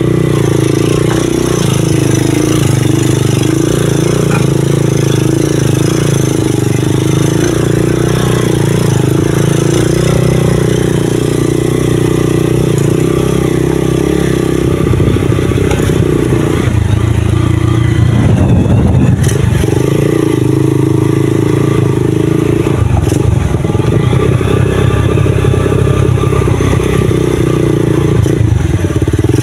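Motorcycle engine running while riding down a dirt track. Its steady note breaks up briefly a little past halfway, then settles again.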